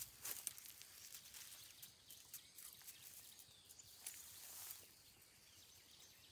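Near silence with faint, scattered rustles and light clicks, a little louder about four seconds in.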